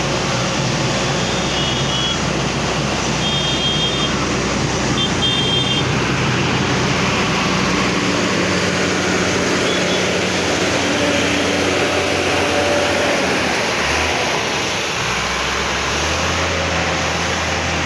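Heavy diesel engine running steadily at close range, its low note shifting a couple of times. A few short, high-pitched beeps sound in the first six seconds.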